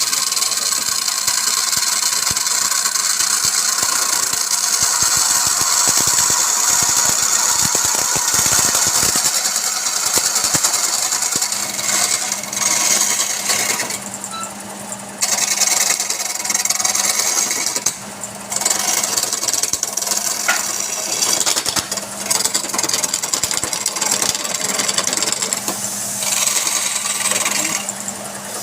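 A wood lathe runs with a steady motor hum while a turning tool cuts the spinning wood, making a loud, continuous shaving hiss. The cutting noise breaks off briefly a few times, while the motor hum carries on.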